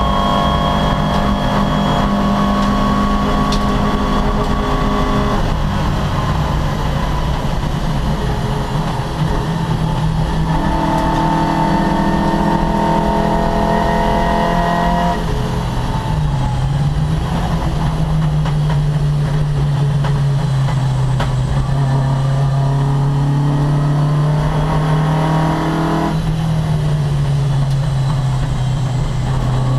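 Opel Kadett C racing car engine running hard at speed. Its note holds steady for a few seconds at a time and then shifts pitch abruptly, several times over.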